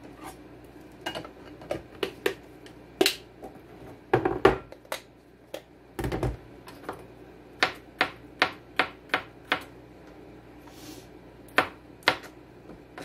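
Kitchen knife chopping vegetables on a plastic cutting board: sharp irregular taps, settling into a run of about three a second in the middle, with a couple of heavier, deeper knocks a few seconds in.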